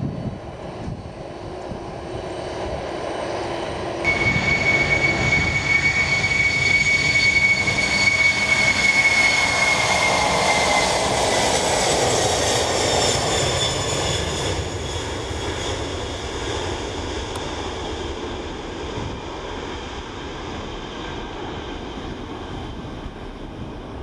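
Boeing 747-400 jet engines, first at low taxi thrust, then about four seconds in at full takeoff power. A loud rush carries a high fan whine that slides down in pitch as the jet passes on its takeoff roll. The sound fades as it rotates and lifts off.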